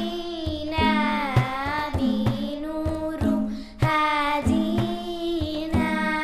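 Two young girls singing an Arabic nasheed together over a backing track with a steady low drum beat.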